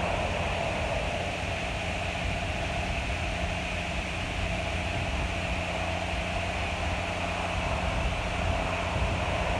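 Claas Lexion 750 Terra Trac combine harvester running steadily while harvesting rice: a continuous engine drone with a low hum under a hiss of machinery noise.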